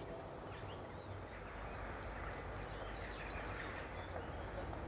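Outdoor ambience: a steady low hiss of background noise with faint, scattered bird chirps.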